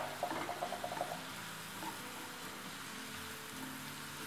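Wooden spoon stirring diced onion and jalapeño in a frying pan of butter and oil, with quick light scrapes in the first second, then a faint steady sizzle.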